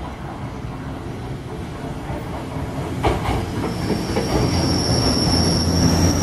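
Sanyo Electric Railway three-car local train pulling into the platform, its running rumble growing louder as it comes alongside. There is a sharp knock about three seconds in, then a high steady squeal from the wheels from about four seconds in as it slows to stop.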